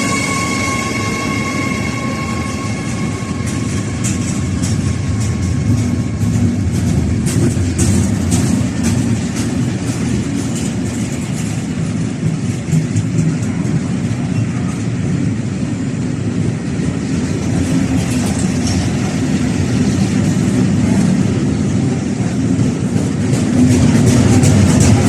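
Freight train passing: a steady rumble and clatter of wagon wheels over the rail joints. A high-pitched wheel squeal fades out in the first few seconds, and the rumble grows louder near the end.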